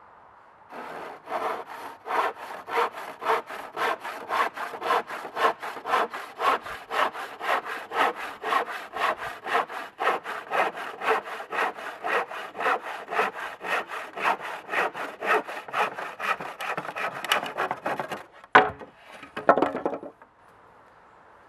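Vintage Disston hand saw cutting through a wooden board in fast, even strokes, about two and a half a second, each a rasping scrape. Near the end there is a sharp loud crack and a short scrape, then it stops, as the cut finishes.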